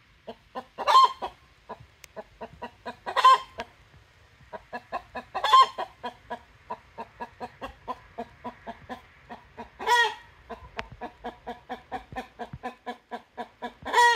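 Chicken clucking in a quick, even run of several short clucks a second, broken five times by a loud, brief squawk.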